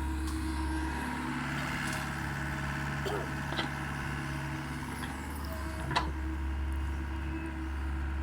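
Mini excavator's diesel engine running steadily, its note easing about a second in and picking up again about five seconds in as the machine works, with a few sharp cracks, the loudest about six seconds in.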